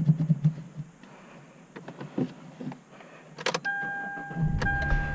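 Hyundai Elantra being started: a few knocks and key clicks, then a steady electronic warning chime that repeats about once a second, and the four-cylinder engine firing about four seconds in and settling into idle.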